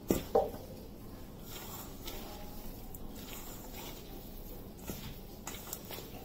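Hand mixing mashed potato, vegetables and cornflour in a steel bowl: faint soft squishing and small clicks as the mixture is pressed and turned. Two sudden loud sounds in quick succession come just after the start.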